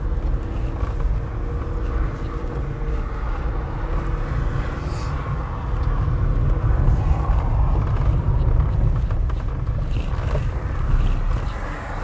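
Car driving slowly over a rutted dirt and sand track: a steady low rumble of tyres, suspension and engine, a little louder over the rougher stretch about halfway through.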